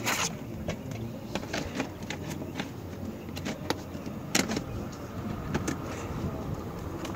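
White vinyl soffit panels clicking and clattering irregularly as they are handled and slid up into the channel under the eave, the loudest clacks at the very start and about four seconds in, over a steady low rumble.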